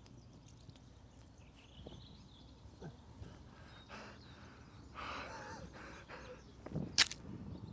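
A man's wordless breaths and a laugh over quiet outdoor ambience, with a sharp click near the end.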